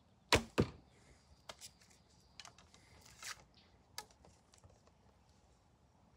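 A traditional longbow shot: a sharp snap of the string on release, then, about a quarter second later, the smack of the arrow striking the target. A few fainter clicks and rustles follow as the next arrow is taken and nocked on the string.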